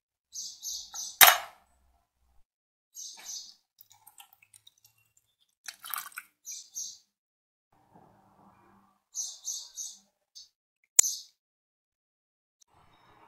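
Rusty metal parts handled in a plastic tub, with a sharp click about a second in and another near the end, and white vinegar poured over them about six seconds in. A small bird chirps in short high bursts several times in the background.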